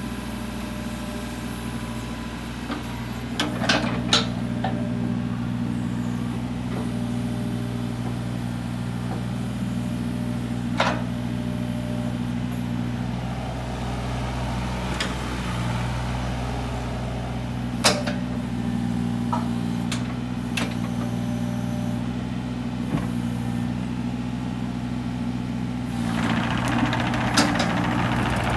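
Takeuchi TB125 mini excavator's diesel engine running steadily, with several sharp clunks at intervals as the machine works. Near the end a louder rushing noise joins the engine.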